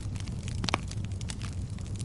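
Fire crackling: irregular small snaps and pops over a steady low rumble, with one louder pop just before the middle.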